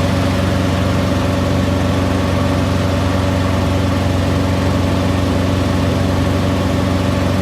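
Peterbilt 587 semi truck's diesel engine idling steadily.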